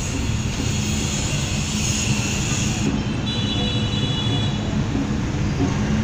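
Busy city street traffic heard from inside a moving vehicle: a steady engine rumble and road noise with a low hum, and a brief thin high tone about halfway through.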